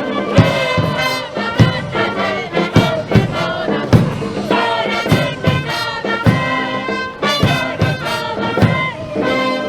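Wind band playing a cheer song: sustained brass chords with frequent drum strikes, and voices chanting along.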